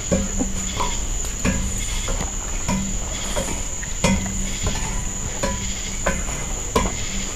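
A steady high-pitched chorus of night insects, with footsteps on the trail landing about every second and a half.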